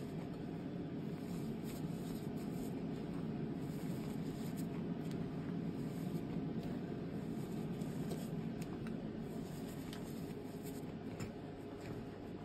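Powdered gym chalk being sifted and rubbed by hand in a bowl: a steady rustling hiss as the powder falls and is worked, with occasional faint ticks.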